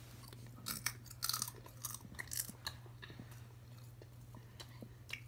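Spicy chips crunched and chewed close to the microphone: a quick run of crunches in the first half, thinning to scattered ones toward the end.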